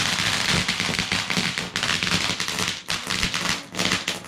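A firework crackling: a dense, rapid string of small bangs and crackles that is loud throughout and stops abruptly at the very end.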